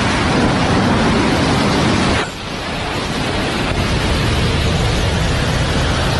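Loud, steady rush of wind buffeting the microphone of a camera flying at wingsuit speed. It drops suddenly about two seconds in, then builds back up.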